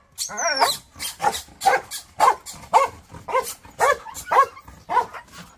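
Black Belgian Malinois bitch barking over and over, about two barks a second. This is the aggressive guarding of a nursing mother that her owner says will bite anyone but him.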